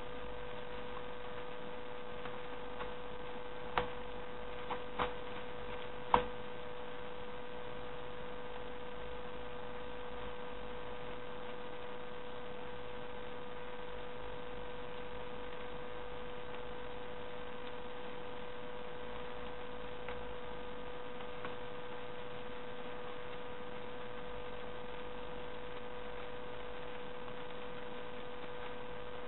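Steady electrical hum with a constant whine, and a handful of short clicks between about four and six seconds in.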